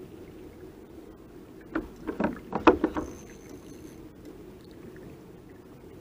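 A quick cluster of several knocks and clatters on the kayak, lasting about a second, as a trolling rod bent by a fish's bite is grabbed from its holder. A steady low hum runs underneath.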